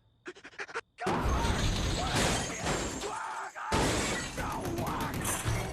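Loud crashing and shattering with music underneath, starting about a second in and running on for several seconds.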